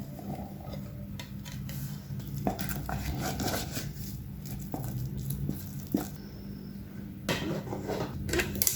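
Metal spoon clinking and scraping against a jar or bowl while stirring flour and water into a sourdough starter for a feed, with irregular knocks that grow louder near the end. A steady low hum runs underneath.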